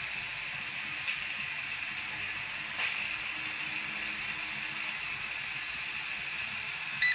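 Steam hissing steadily out of an electric pressure canner's vent valve, set to exhaust during the pre-pressurising vent countdown. A short electronic beep sounds at the very end.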